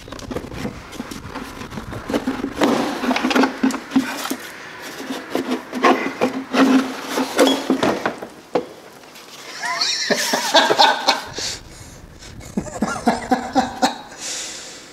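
Plastic clutch and drive-belt cover of a Polaris Trail Boss 250 ATV being pried and wrenched loose by hand: irregular knocks, rattles and scraping of plastic against the machine. The cover is packed with rodent nest debris.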